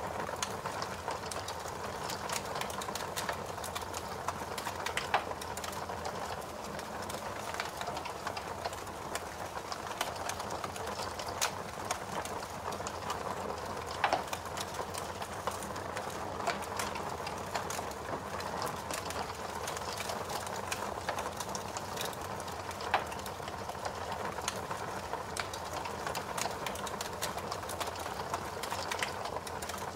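Fire crackling: a steady hiss full of small irregular crackles, with a few louder pops scattered through.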